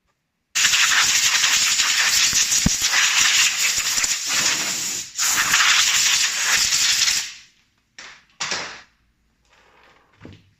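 Loud hiss of blowing air, starting abruptly and running about seven seconds with two brief breaks, then two short bursts.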